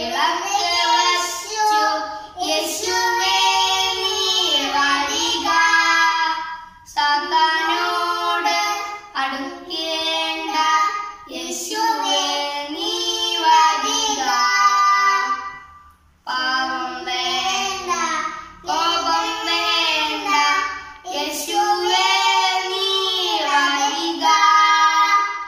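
Two children, a boy and a young girl, singing a Malayalam Christian evening prayer song together in sung phrases, with short pauses between verses.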